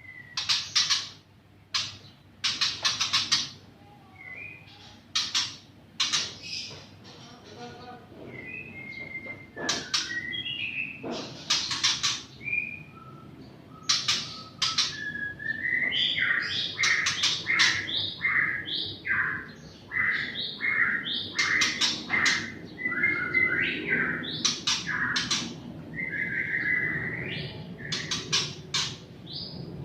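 Several pet songbirds chirping and whistling, with many short sharp chirps and whistled notes that grow denser and louder about halfway through.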